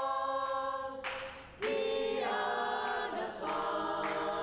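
Choir-like vocal music: voices holding long chords that move to a new chord a few times, with brief breathy pauses between phrases.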